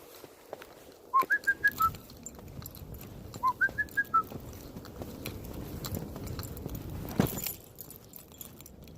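A person whistling two short phrases of about five quick notes each, the first note low, then higher notes, dropping on the last. A sharp thump comes near the end.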